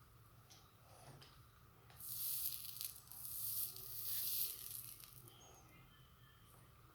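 Soldering iron tip sizzling on flux and solder at a joint on a charger's power supply board: two hissing bursts, the first about a second long, the second about a second and a half.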